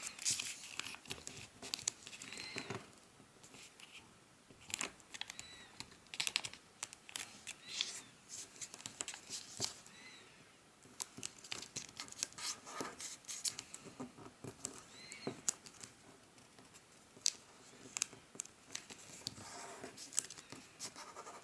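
Origami paper being handled, folded and creased by hand: irregular rustles, crinkles and short sharp scrapes and clicks.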